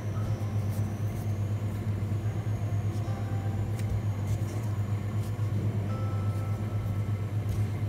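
A steady low hum, with a few faint soft taps over it.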